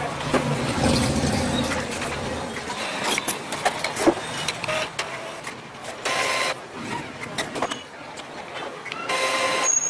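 Epson L805 inkjet photo printer running its initial ink charge, its internal motors whirring in short bursts with scattered clicks.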